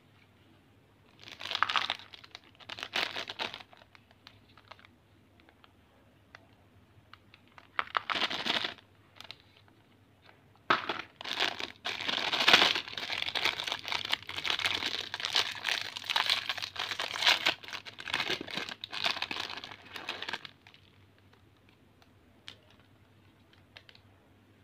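Plastic snack wrapper crinkling and tearing as a mini Oreo packet is opened by hand: a few short bursts at first, then about ten seconds of steady crinkling that stops suddenly.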